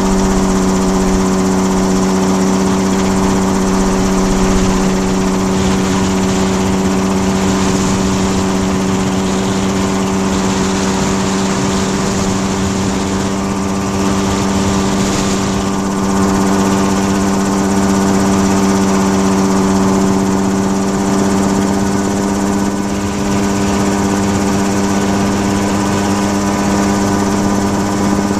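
Small engine of the low-flying aircraft that carries the camera, heard close up, running steadily at an even pitch at constant throttle.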